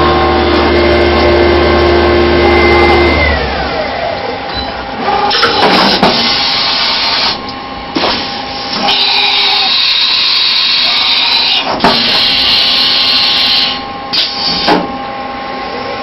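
CNC vertical mill with a four-axis rotary table cutting, its spindle tones stopping about three seconds in with a falling whine. After that come several loud runs of axis travel, with a few sharp clunks between them.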